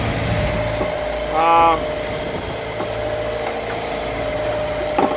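Sailboat's inboard engine running steadily under a rushing of wind and water along the hull, with a brief voice about a second and a half in.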